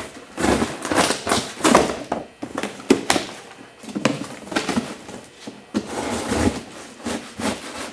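Packing material and duct tape being pulled and torn off by hand: irregular crinkling, rustling and ripping, with a sharp snap about three seconds in.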